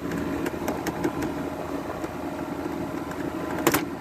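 A Frigidaire 12,000 BTU window air conditioner running, its LG rotary compressor and fan giving a steady hum. Light clicks and a sharp plastic knock near the end come from working the filter door, which won't close.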